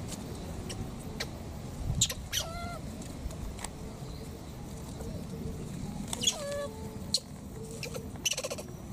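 Baby macaque giving short, high squeaks that fall in pitch, about two seconds in and again about six seconds in, then a fast stuttering squeal near the end.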